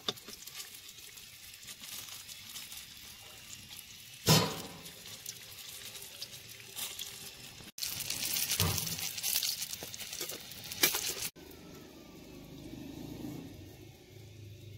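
Bolani frying in hot oil in a large aluminium pot: steady sizzling and crackling, with metal spoons scraping and clanking against the pot, the loudest clank about four seconds in. The sizzling is loudest from about eight to eleven seconds in, then quieter.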